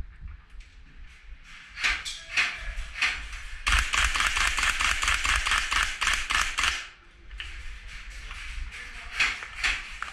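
Airsoft guns firing indoors: a few scattered shots, then a sustained rapid burst of about three seconds, then more single shots and short strings near the end.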